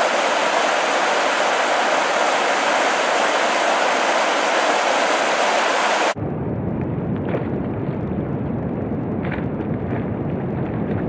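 River rapids rushing over boulders: a steady, full rush of white water. About six seconds in it cuts abruptly to a low, rumbling rush of wind buffeting the microphone by the open river.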